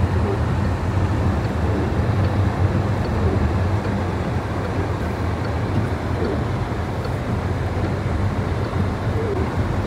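Steady rumble of a car driving on an icy, snow-covered road, heard from inside the cabin: a low engine and drivetrain hum under tyre noise.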